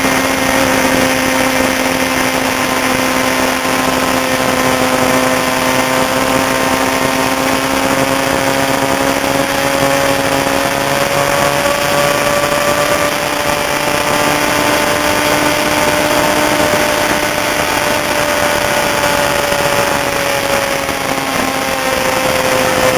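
Racing motorcycle engine running at steady revs, its pitch drifting only slightly up and down, over a steady rush of noise.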